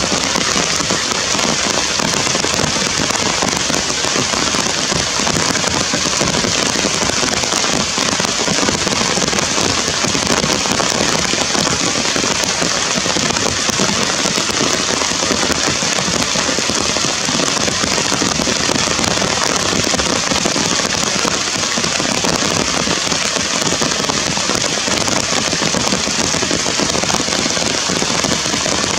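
Heavy rain falling steadily on forest leaves and branches, a dense, even crackling hiss that does not let up.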